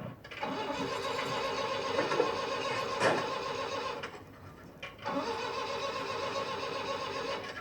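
A van's engine being cranked on the starter in two long attempts, broken off about four seconds in and tried again about a second later. The engine won't start.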